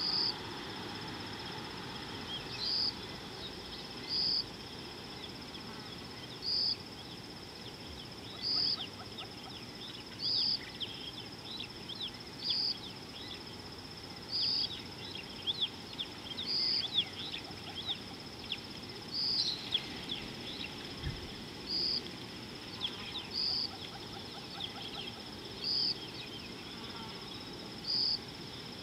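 Steady high-pitched insect drone with a louder pulse about every two seconds. Through the middle it is joined by a scatter of quick, high, downward-sliding chirps.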